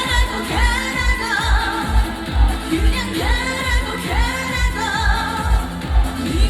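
Live trot pop song: a female lead vocal over an amplified backing track with a steady kick drum, about two beats a second.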